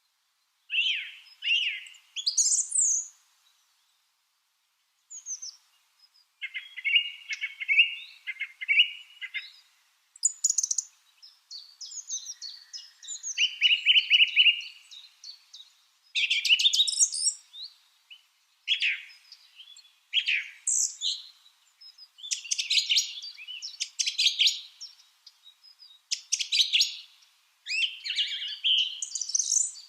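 Lovebirds chirping: bursts of rapid, high chirps and short calls with brief pauses between them.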